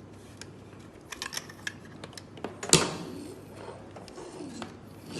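Hard objects being handled and set down: a run of light clicks and taps, then one sharp knock a little under three seconds in, followed by soft rustling.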